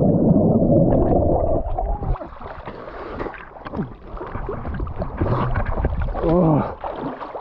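Lake water splashing and sloshing around a person swimming beside a paddleboard, with a heavy rumble on the microphone for the first two seconds and a brief voice about six seconds in.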